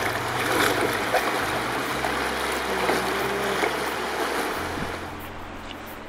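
Bare legs wading through a shallow, fast-flowing river, water splashing and rushing around the shins; it eases off near the end.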